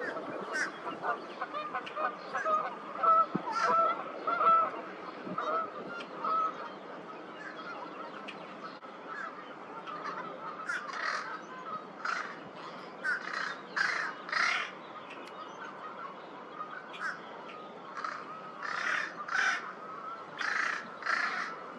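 Crows giving short, nasal calls like a fish crow's. Drawn-out, wavering calls come in the first few seconds, then a run of short calls, mostly in quick pairs, from about halfway on.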